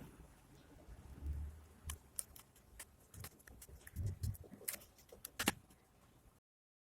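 Computer parts being handled during assembly: a scatter of light clicks and taps with a couple of soft low knocks, the sharpest click near the end, before the sound cuts off abruptly.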